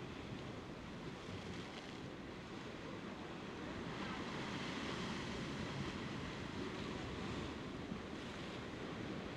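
Heavy sea surf churning and breaking against the rocks: a steady rush of water that swells a little about four seconds in.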